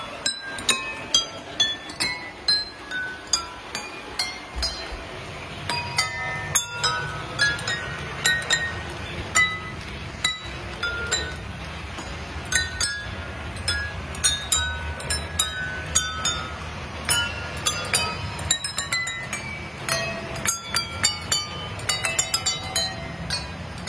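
Water-filled drinking glasses struck one after another by a mallet on a moving model train, ringing out a melody note by note, about two notes a second. A low rumble comes in underneath about four and a half seconds in.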